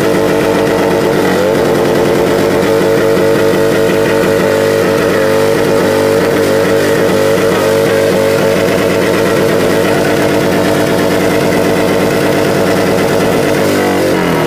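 Harley-Davidson V-twin engine held at high revs in a stationary burnout, the rear tyre spinning and smoking against the hood of an SUV. The pitch stays nearly steady, with a brief rise of the revs about a second and a half in, and falls away right at the end.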